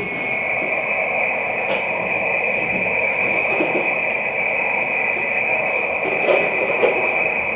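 Receiver audio from an HF amateur radio transceiver in USB on the 12 m band with nobody transmitting: steady band-noise hiss with a steady high-pitched tone through it. The S-meter has dropped, so the station on frequency has stopped talking and only the noise is heard.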